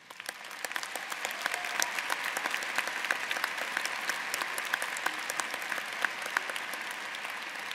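Large audience applauding, many hands clapping at once. It swells up over the first second, then holds steady.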